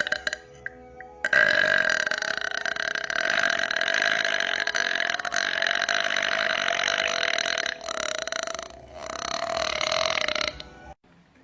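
A woman belching: one long, drawn-out burp of about six seconds that holds a steady pitch, then two shorter burps near the end.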